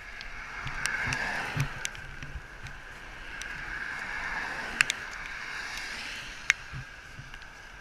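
Cars passing on a rain-soaked road, their tyres hissing through the water; the hiss swells twice, about a second in and again around four seconds. Sharp ticks are scattered throughout, along with a few soft low thumps.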